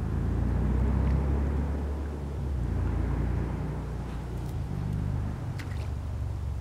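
Wind buffeting a small camera's microphone, a steady low rumble with hiss that swells and eases, and a few faint clicks near the end.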